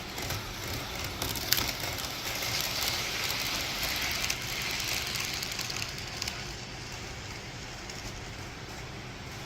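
HO scale model freight train running past on the layout track, a hissing rattle of wheels and motor that swells a couple of seconds in and fades after about six seconds, with a sharp click about a second and a half in.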